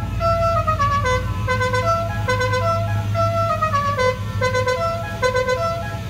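Instrumental background music: a slow melody of held notes stepping up and down over a steady low drone.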